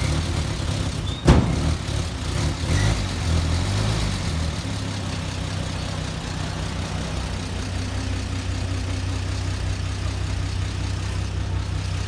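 1949 Chevrolet pickup's straight-six engine running, with one sharp knock about a second in. It runs unevenly for a few seconds, then settles into a steady idle.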